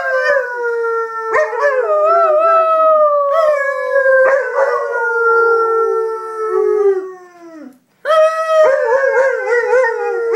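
Dog howling: a run of long drawn-out howls that slide slowly down in pitch, each new one starting over the end of the last, so two howls overlap at times. After a short break about eight seconds in, a wavering howl follows.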